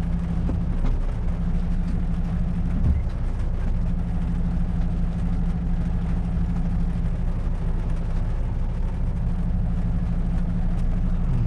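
Heavy goods vehicle's diesel engine running with a steady low drone.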